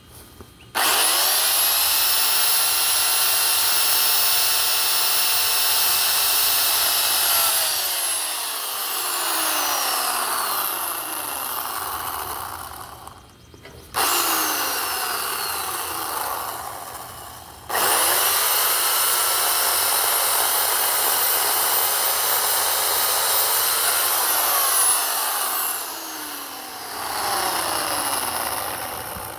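WEN 16-inch electric chainsaw cutting through a small pine trunk. The motor starts abruptly with a high steady whine, runs for about seven seconds, then winds down with a falling pitch. After a short burst, it runs again for about seven seconds and winds down the same way.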